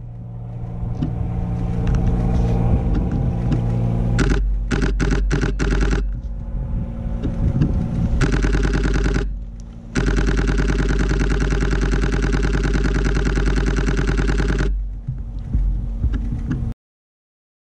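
Nikon D500's shutter firing, heard up close through a GoPro mounted on the camera's hot shoe, over a low steady hum: a few single clicks, then a short burst about eight seconds in and a long burst of nearly five seconds from about ten seconds in, rattling off at about ten frames a second.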